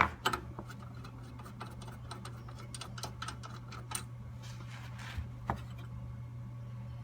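Scattered small clicks and taps of metal carburetor parts being handled, with a louder click at the start, over a steady low hum.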